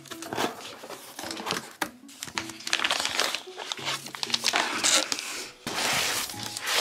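Plastic packaging crinkling and rustling as a bagged tablet case is handled and lifted out of a cardboard shipping box, louder near the end. Light background music plays underneath.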